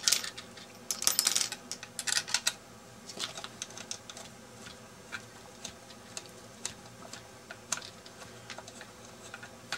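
Small metallic clicks and ticks as a screwdriver turns a bolt into an alternator's case, the bolts joining its two halves. A quick cluster of clicks in the first couple of seconds, then scattered single ticks.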